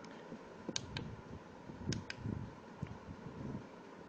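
Small plastic buttons on a Rossmax MJ701 blood pressure monitor clicking under a thumb: a few presses of the plus button to step the date setting, the clicks coming in close pairs about one and two seconds in.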